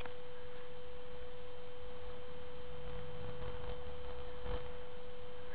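A steady, unchanging single-pitch hum over faint background hiss; nothing else stands out.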